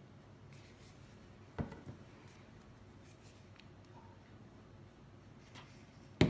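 Plastic icing squeeze bottles knocked against the work surface as they are put down and picked up, with faint handling clicks in between: one knock about a second and a half in and a louder double knock near the end.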